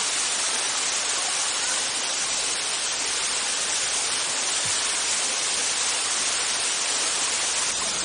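Steady rush of water from a small waterfall cascading over rocks, an even hiss with no breaks.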